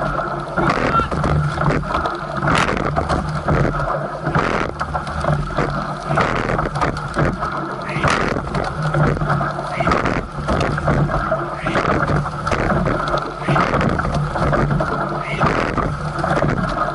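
Coxless four rowing shell racing: water and wind rushing past the boat-mounted camera, with a surge of oar and seat noise about every two seconds, once per stroke.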